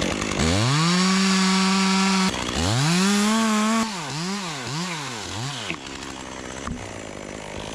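Chainsaw revved to full throttle and held for nearly two seconds, then revved up again, then blipped up and down four times before settling to a lower speed.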